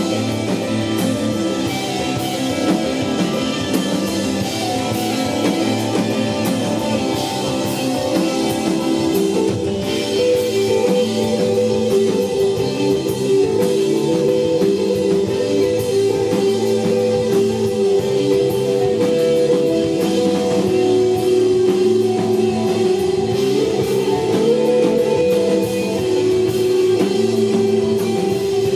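Desert rock band playing live, instrumental: held, slowly changing electric guitar notes over a repeating bass line and a steady drum kit with cymbals.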